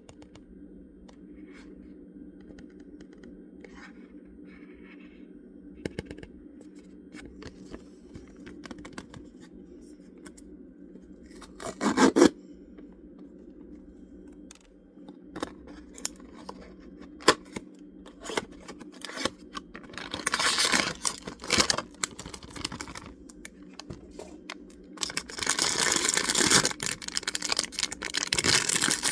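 Blind-box packaging being opened by hand: scattered small scratches and clicks, a sharp tear about twelve seconds in, then crinkling and tearing of the plastic wrapping, loudest near the end, over a steady low hum.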